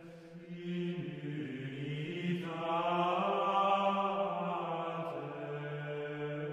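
Background music of slow, sustained chanting over a steady low drone, the voices moving to new held notes about a second in and again around two and a half seconds in.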